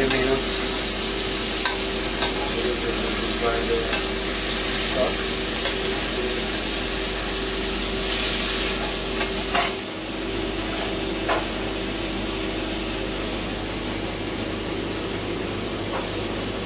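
Food sizzling in a hot frying pan, with a few sharp clicks of a utensil against the pan in the first half and a steady hum underneath.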